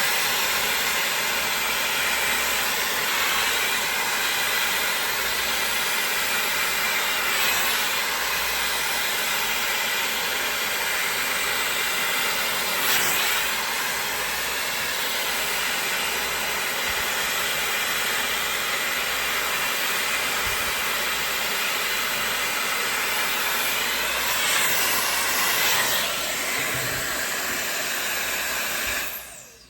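MESCOMB 5-in-1 hot air styler, a 110,000 RPM high-speed hair dryer brush, running steadily with a loud rush of air and a faint motor whine as it dries hair. It switches off suddenly near the end.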